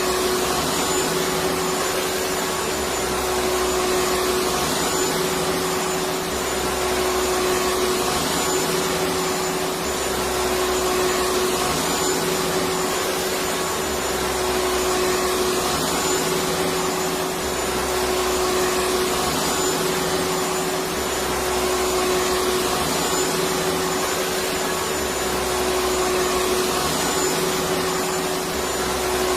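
Vacuum cleaner running steadily: a constant motor tone under a rushing hiss of air, with a faint low throb repeating about every three and a half seconds.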